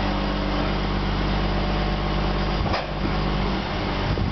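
Diesel engine of heavy earthmoving machinery running steadily at constant speed, with one short knock about two and a half seconds in.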